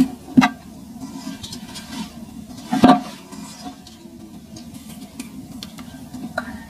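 Dry clumps of sand crushed and crumbled between fingers: a gritty crackling with scattered sharper cracks, the loudest about three seconds in.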